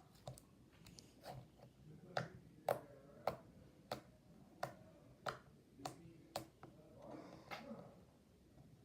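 Sticky homemade slime being squeezed and stretched by hand, giving a series of short sharp clicking pops about every half second; the pops come from the slime sticking and tearing away as it grows stickier with added lotion.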